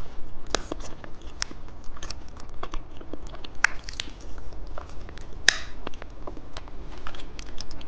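Close-miked crinkling and crackling of plastic candy packaging: a dense run of small clicks, with two louder crackles a little past halfway.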